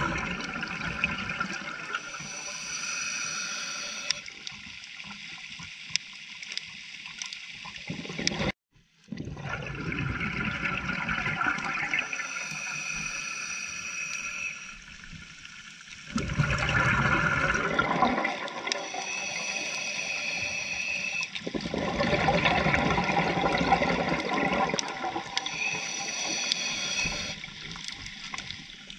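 Scuba diver breathing through a regulator underwater: hissing, whistly inhalations alternate every few seconds with louder gurgling bursts of exhaled bubbles. The sound drops out briefly about a third of the way in.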